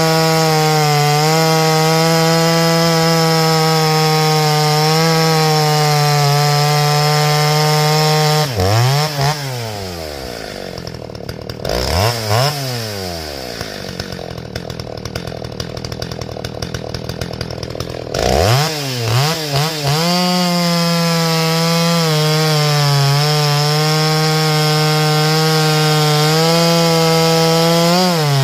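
A two-stroke Stihl 029 chainsaw cuts through pine logs at full throttle. About 8 seconds in it drops to idle, gives a short rev, and near the end of its pause climbs back to full revs to cut again. The new Archer chain is running tight, which the owner thinks may be a little too tight.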